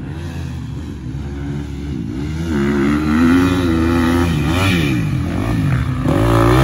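Dirt bike engine revving up and down as the bike works through deep, muddy ruts, its pitch rising and falling repeatedly and getting louder near the end as it passes close.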